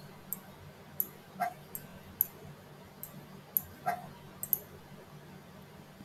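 Computer mouse clicking: about ten short, sharp clicks at uneven intervals. Two brief pitched sounds come about a second and a half in and again near four seconds.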